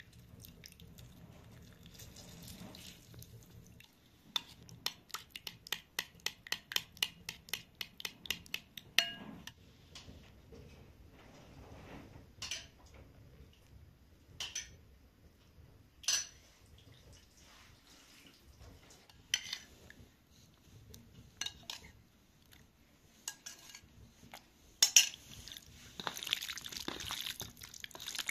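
Metal spoon stirring a red marinade in a ceramic bowl, clinking against the bowl rapidly at about four strokes a second, then a few single clinks spaced seconds apart. Near the end, wet squelching as hands knead marinated raw chicken on a steel tray.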